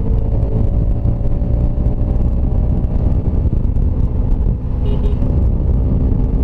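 Kawasaki Rouser RS200's single-cylinder engine running steadily while riding at highway speed, with a brief dip in loudness about four and a half seconds in.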